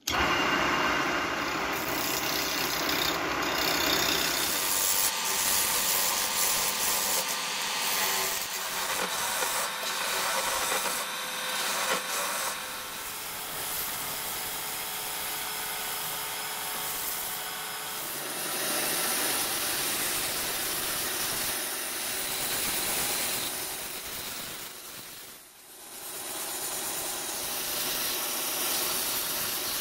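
Wood lathe spinning a young oak log while a hand-held tool cuts and smooths the turning wood, throwing shavings and dust. Near the end it changes to a band saw cutting the turned oak handle.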